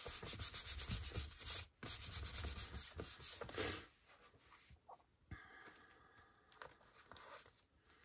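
Paper being rubbed down to press a glued paper piece flat, in quick scratchy strokes for nearly four seconds with a short break, then a few faint taps of paper handling.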